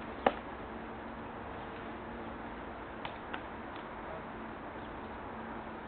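Steady outdoor background noise with a faint low hum, broken by one sharp click about a third of a second in and two small clicks about three seconds in.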